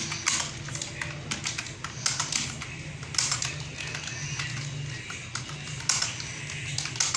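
Typing on a computer keyboard: an uneven run of key clicks at a slow, unsteady pace, with small clusters and short pauses.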